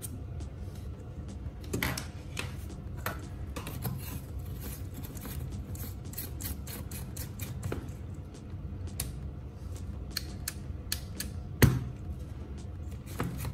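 Small clicks and taps of plastic and metal as an LED bulb is handled and screwed into a plastic lamp-socket adapter, scattered irregularly, with one sharper click about three-quarters of the way in.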